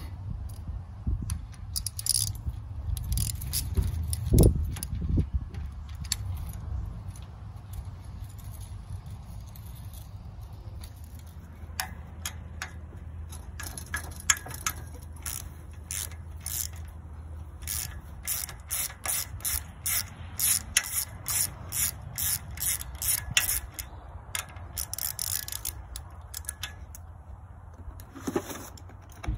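Socket ratchet wrench clicking in runs of quick, even strokes, turning the nuts on the bolts that hold a sickle bar mower's knife sections. A low thump comes about four seconds in, and the clicking starts about twelve seconds in.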